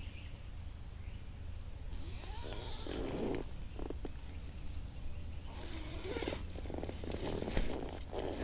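Rustling and handling noises in irregular bursts, with a few sharp clicks, most likely from moving about among tent fabric and bedding. Under them runs a steady faint high-pitched tone and a low hum.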